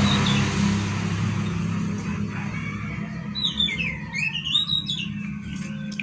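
A bird chirping a quick run of rising and falling notes about three and a half seconds in, over a low engine hum that fades away in the first couple of seconds.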